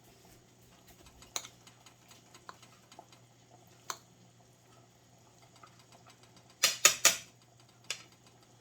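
Utensils clinking and knocking against dishes as a plate of food is served: a few light clicks, then a quick run of three or four sharper knocks about two-thirds of the way through and one more shortly after.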